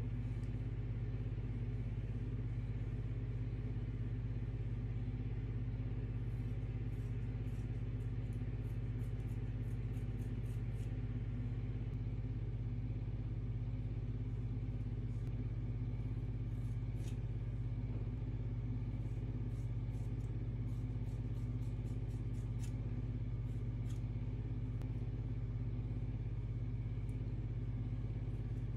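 A steady low hum, with faint snips of scissors cutting hair: quick runs of small clicks about six to eleven seconds in and again about nineteen to twenty-four seconds in. The scissors are dull.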